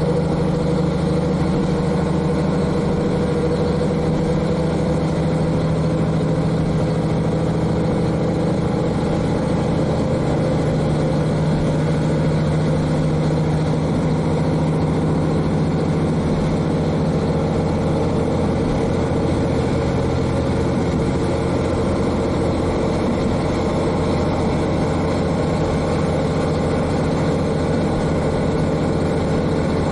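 KiHa 40 diesel railcar's N-DMF13HZI diesel engine, heard from directly above it inside the car, running steadily under way. The engine note eases slightly about two-thirds of the way through.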